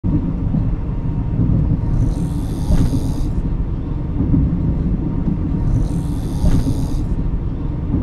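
A person snoring in a sleeper-train berth: two long breaths about four seconds apart, over the steady low rumble of the moving train carriage.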